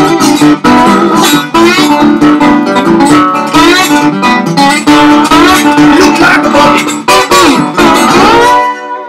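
National tri-cone resonator guitar played fingerstyle with a bottleneck slide: picked notes with gliding pitch. Near the end a long downward slide, then the playing stops and a chord rings out.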